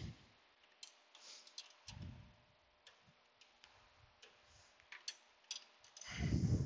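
A 15 mm wrench and a serpentine belt being worked around the belt tensioner and pulleys of a 2002 Ford Ranger's 3.0 L engine: scattered light metal clicks and taps. There is a soft thump about two seconds in and a louder low thud near the end.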